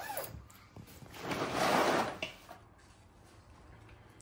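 A brief rustle of things being handled while a suitcase is packed, about a second long and starting about a second in, followed by a few faint knocks.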